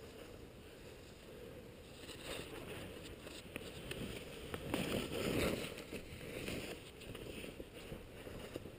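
Skis swishing and scraping over snow through turns, swelling louder about halfway through.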